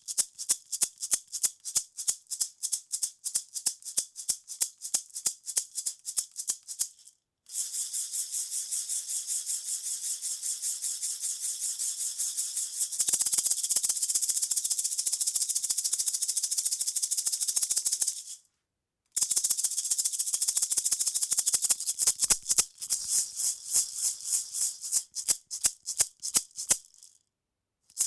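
Wooden maraca shaken in a beat of separate rattling shakes, about three a second, then after a brief pause shaken fast and continuously as a steady rattle that gets louder about halfway through. After another short pause it returns to separate shakes.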